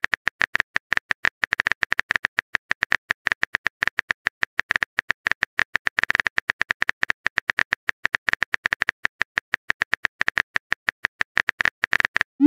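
Phone keyboard typing sound effect: a fast, even run of key clicks, about eight a second, as a text message is typed out. It ends with a short rising swoosh.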